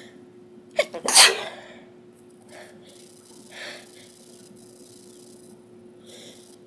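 A person sneezing once: a short sharp catch of breath, then a loud explosive sneeze about a second in, followed by a couple of faint breaths.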